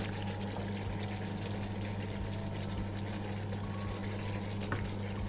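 Beef in thick sauce simmering in a frying pan on a hob, a soft bubbling hiss over a steady low hum. A faint click near the end.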